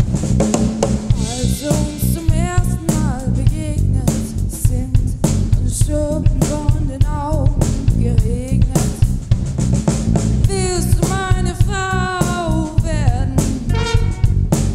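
A big band playing live, the drum kit and bass keeping a steady groove, with singers singing over it. The voices come in a couple of seconds in and are strongest near the end.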